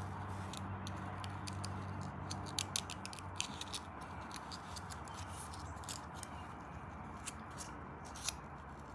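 Stiff paper being folded and creased by hand: scattered small crinkles and clicks, two sharper ones just under three seconds in, over a low steady hum that stops about three seconds in.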